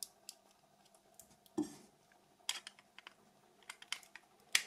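Scattered small plastic clicks and taps from a Nokia 6300 mobile phone being handled, with a soft thump about one and a half seconds in and the sharpest click near the end.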